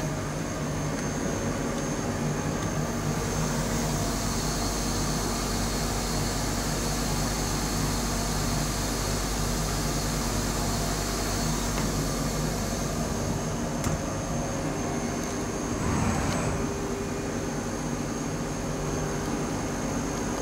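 HüllerHille NBH 170 CNC machining center running: a steady mechanical hum with high whining tones. The whine and the low hum fall away about twelve seconds in. About sixteen seconds in comes a brief louder rush of noise.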